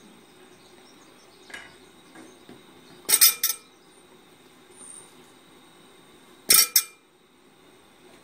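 Carrot chunks dropped into a cast iron pot, clinking against the pot and a metal serving spoon. There is a faint knock, then a quick cluster of ringing clinks about three seconds in, and a loud pair about six and a half seconds in.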